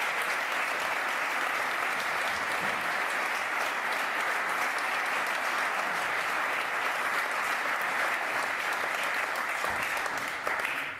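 Audience applauding steadily, the clapping dying away at the very end.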